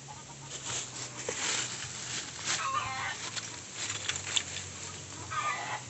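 Chickens clucking now and then, with scattered short scratchy noises over a steady low hum.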